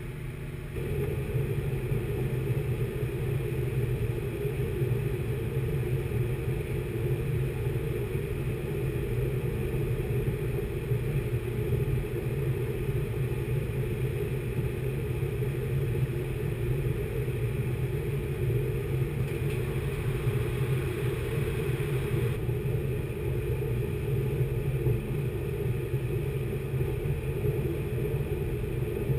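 Multicat workboat's engines running steadily under way, a low hum that steps up in loudness about a second in as the boat gets moving, with water churning in its wake.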